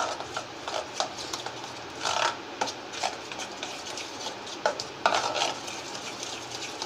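Metal spoon stirring and beating thick moong dal batter in a stainless steel bowl, with the wet batter squelching and the spoon clicking and scraping against the sides of the bowl now and then.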